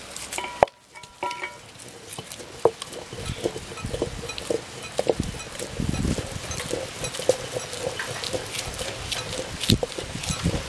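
Stone grinder (aattukal): the heavy cylindrical granite stone rolled and knocked inside the stone basin, crushing whole shallots into spice paste. Uneven crunching and low rumbling with many sharp clicks of stone on stone.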